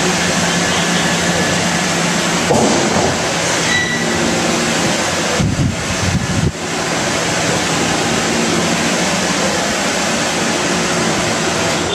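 Cleanroom air shower blowing high-velocity air from its stainless-steel nozzles, a loud steady rush of air with a brief low rumble partway through. It stops at the very end.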